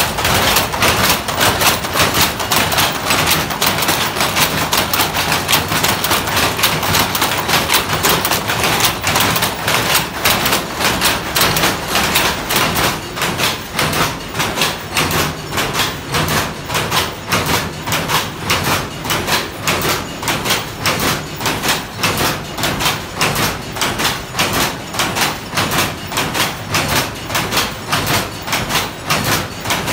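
Weaving loom working a cotton saree, its shuttle and beater clacking in a steady, fast rhythm.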